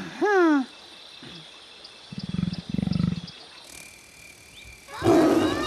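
Cartoon creature calls: a short squeaky call sliding up and down at the start, two low rasping calls about two seconds in, then a loud burst of chattering voices near the end.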